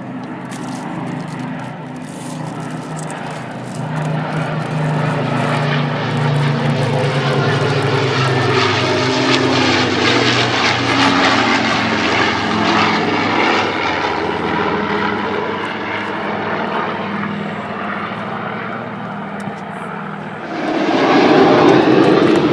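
Aircraft engines droning as an aircraft flies past, with several low engine tones that swell to a peak and then ease off. About twenty seconds in, a sudden louder rush begins.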